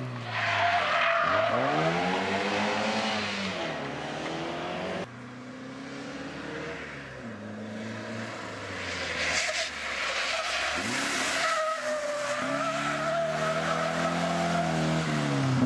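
Historic rally cars' engines revving hard through a hairpin: the pitch drops as the car brakes and downshifts, then climbs again under full throttle as it pulls away, with tyre squeal as a car slides round the bend. An abrupt cut about five seconds in switches to the next car.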